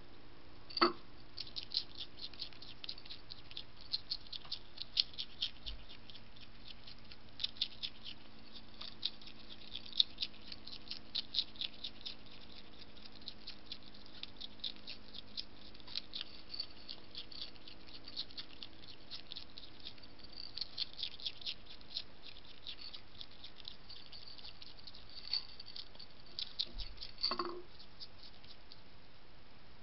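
European hedgehog crunching and chewing dry food from a plate, a close run of quick, irregular crisp clicks. A sharper knock comes about a second in and another near the end.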